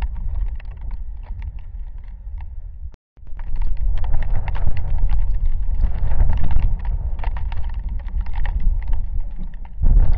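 Rainstorm with gusting wind: heavy wind buffeting on the microphone under a dense patter of raindrops striking close by. The sound cuts out completely for a moment about three seconds in, then comes back louder.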